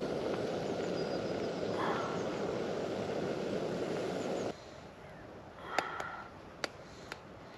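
Camping gas burner running with a steady flame noise under the pot of soup, cut off suddenly about four and a half seconds in, followed by a few light clicks.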